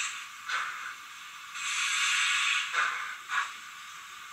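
Zimo sound decoder in an HO-scale Roco BR52 model steam locomotive playing steam sounds through its small speaker, thin with no bass: a short chuff about half a second in, a long hiss of escaping steam, then two more short chuffs.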